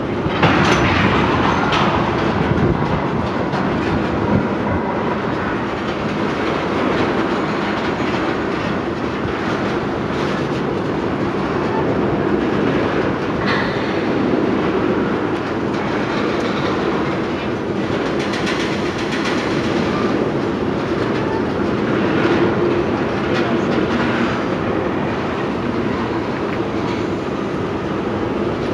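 Freight train of ethanol tank cars rolling past at close range: a steady rumble of steel wheels on rail with recurring clickety-clack.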